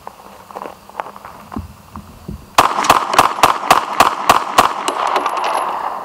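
Gen 4 Glock 26 9mm pistol fired in a fast string, about nine shots in two seconds, each shot cycling with no stoppage, then a ringing tail. A few faint handling clicks come before the shots. The dirt-fouled pistol is running reliably again after being flushed with LPS-2.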